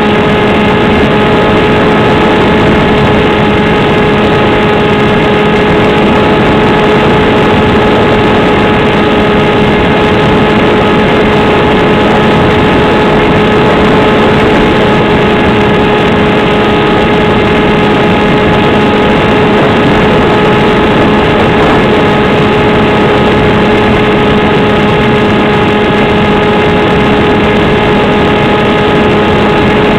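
Steady drone of a small RC plane's electric motor and propeller in flight, with rushing air noise, heard through the onboard FPV camera's microphone. The pitch holds constant throughout, as at a fixed throttle.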